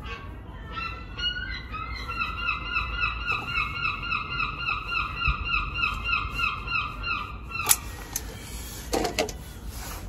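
A gull calling: a long run of repeated yelping notes, about three or four a second, lasting several seconds, cut off by a single sharp click.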